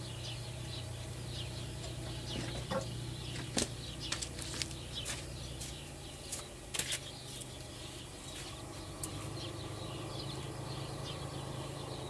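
T-150K tractor's YaMZ-236 diesel engine idling as a steady low hum, with scattered faint high chirps and clicks over it.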